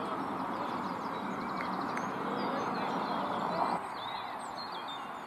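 Small birds chirping and twittering over a steady outdoor background hiss.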